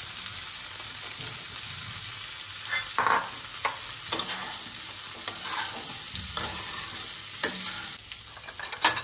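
Boiled potato cubes and peas sizzling in hot oil in a non-stick kadai, with a spatula scraping and knocking against the pan as they are stirred. The sizzle runs steadily, broken by several sharp knocks; it drops a little near the end.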